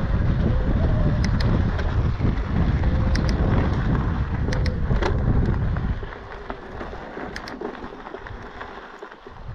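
Wind rushing over the microphone of a mountain bike rolling over a gravel trail, with tyre crunch and scattered sharp clicks. The wind noise drops off about six seconds in, leaving the quieter crunch of tyres on gravel.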